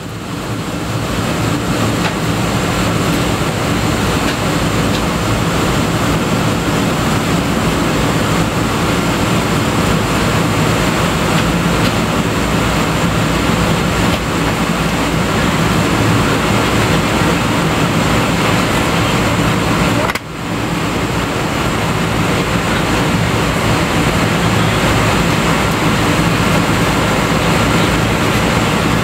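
Steady rumble and rush inside the cabin of a Boeing 777-200ER at a window seat over the wing, as the airliner moves slowly on the ground. The sound briefly cuts out about two-thirds of the way through, then comes straight back.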